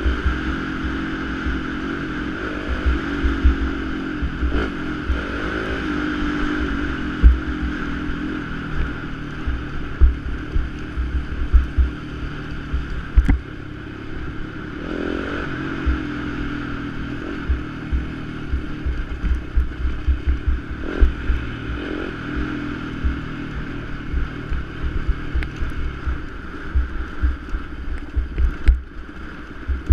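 Yamaha YZ250FX's 250 cc four-stroke single-cylinder engine pulling along a dirt trail, its revs rising and falling every few seconds with throttle and gear changes. Wind buffets the microphone, and a few sharp knocks come from the bumpy ground.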